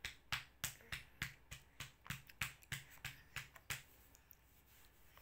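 A quick, even series of light, sharp taps or clicks, about three a second, that stops a little under four seconds in.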